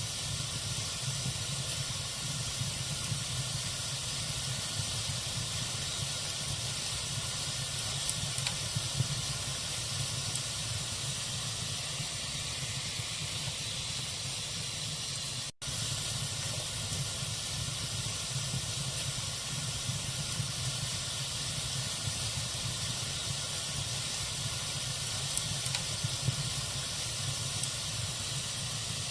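Wood logs burning in a fireplace: a steady hiss with a few faint crackles and pops. The sound drops out briefly about halfway through.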